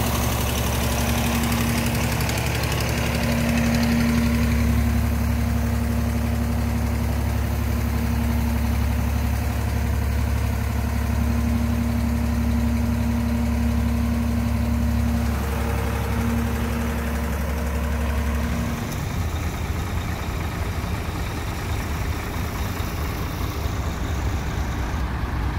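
Heavy truck engine idling steadily with a low hum and a held tone. About two-thirds of the way through the hum gives way to the rougher idle of another truck's diesel engine.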